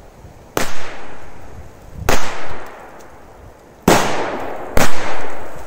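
Two Korsar-4 firecrackers of the two-bang kind going off: four sharp bangs over about four seconds, each trailing off in a short echo, the last the loudest.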